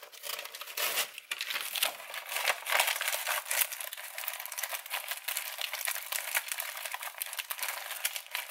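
Dry nori (seaweed) sheets crinkling and crackling as fingers press them down onto a rice layer in a metal springform pan.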